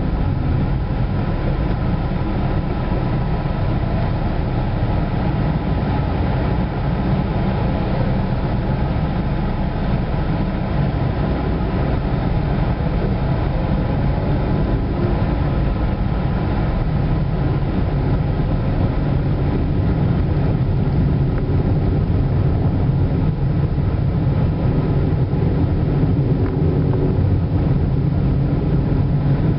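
Steady low rumble of a car driving at town speed, heard from inside the cabin: engine and road noise.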